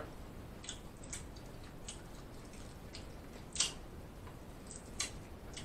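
A person eating: a few short, wet clicks and smacks, the loudest a little past halfway.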